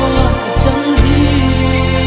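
Recorded Mizo gospel song with full band accompaniment: a steady bass line and drums with regular cymbal hits under sustained melodic parts.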